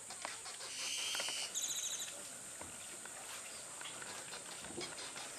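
Rural riverside ambience: a steady high insect drone, with a bird call about a second in, a short high note followed by a rapid rattling trill, and faint scattered ticks.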